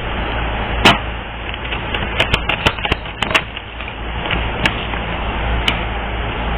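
Reading cards being shuffled and handled: a steady papery rustle broken by irregular sharp clicks.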